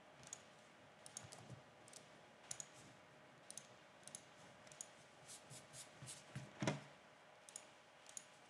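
Faint, irregular clicks of a computer mouse and keyboard, with one louder click about two-thirds of the way in.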